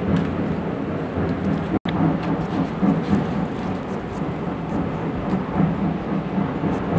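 A small knife cutting through a green mango held over a steel plate, the cuts heard only as faint scattered clicks. A steady low rumbling noise is louder throughout, and the sound cuts out for an instant just under two seconds in.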